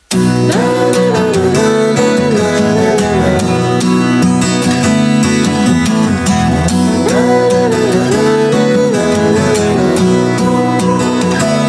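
Background music with guitar, a gliding melody over a steady beat.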